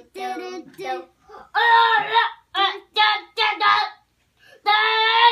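A child singing a wordless 'do do do' tune in short sung syllables, with a short pause and then a longer held note near the end.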